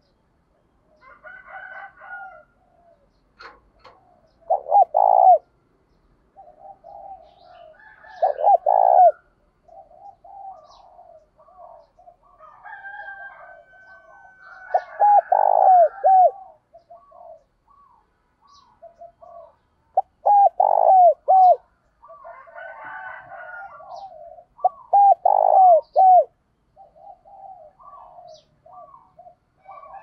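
Spotted dove cooing: five loud phrases of three or four quick, falling coos, spaced about four to six seconds apart, with softer cooing between them.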